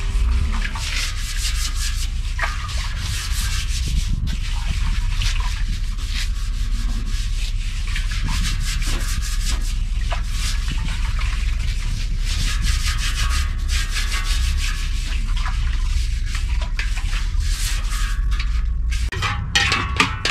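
Continuous rough rubbing and scraping, made of many quick strokes, over a steady low rumble.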